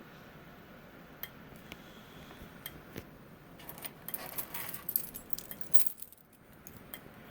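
A ring of keys jangling and clinking as it is handled, with light metallic clinks scattered through and busiest from about four to six seconds in.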